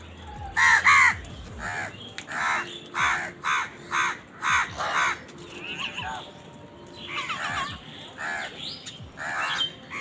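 Crows cawing: a quick run of harsh caws, about two a second, for the first five seconds, then scattered caws.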